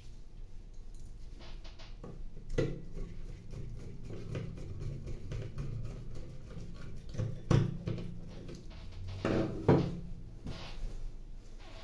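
Screwdriver work on a plastic laser toner cartridge: the screws holding the cartridge blade are undone, with scattered clicks, scrapes and knocks of the tool and the plastic housing. A few louder knocks come through, the loudest near the end as the screwdriver is put down.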